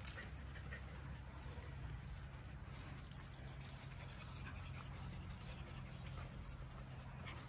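A dog panting faintly over a steady low hum.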